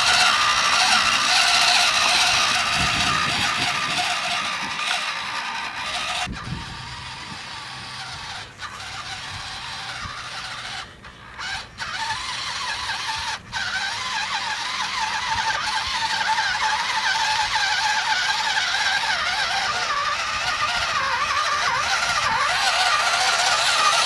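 Electric drive motor and gearbox of a radio-controlled Fendt model tractor whining steadily as it drives through a shallow puddle. The whine fades as the tractor pulls away, about six seconds in, and grows louder again as it comes back close near the end.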